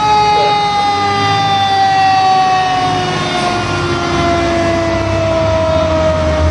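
Fire truck siren sounding while it falls slowly and steadily in pitch, over the low rumble of a heavy engine that grows louder near the end.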